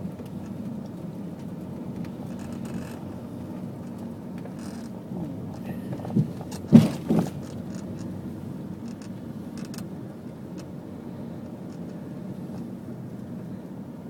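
Steady low hum of a vehicle driving, with three sharp knocks about six to seven seconds in.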